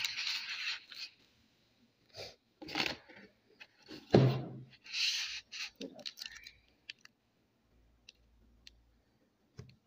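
Plastic bubble wrap crinkling and a cardboard phone box being handled, in short rustles during the first half, with a thump about four seconds in as the box is set down. A few faint clicks follow.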